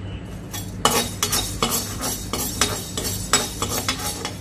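Black urad dal being stirred and dry-roasted in a pan without oil: a utensil scraping and clinking against the pan in a quick, irregular run of strokes starting about a second in.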